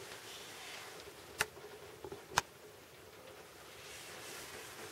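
Faint room tone in a small room, with two sharp clicks about a second apart.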